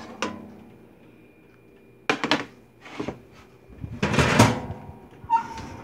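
Metal baking tray clanking and scraping against the oven rack as it is handled: a sharp knock about two seconds in, a lighter one a second later, then a louder scraping rattle around four seconds in.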